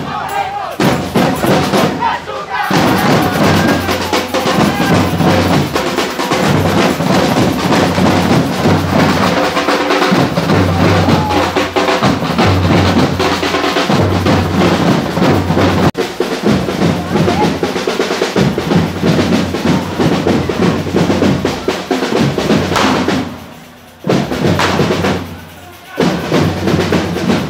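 Street percussion group beating bass and snare drums in a driving rhythm, with crowd voices mixed in. The sound drops out briefly twice near the end.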